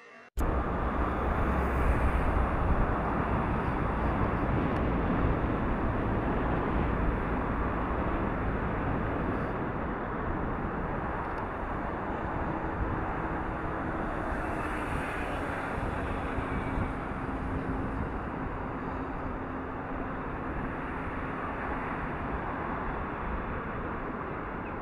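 Steady outdoor rushing noise with a deep rumble, no distinct events. It starts abruptly just after the beginning and eases slightly over time, with a faint low hum coming in about halfway through.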